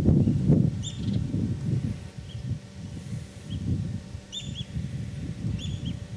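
Short bird chirps, often in quick pairs, repeating every second or so. Under them runs a louder, gusty low rumble that is strongest in the first two seconds and then eases.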